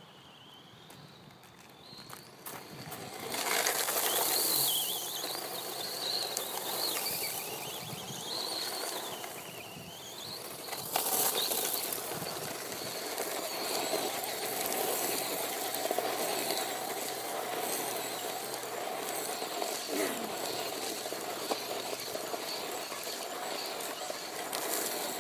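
Ansmann Mad Rat brushless electric RC buggy driving hard on loose gravel: the motor's high whine rises and falls with the throttle over the crunch and spray of stones from its tyres. It starts about three seconds in.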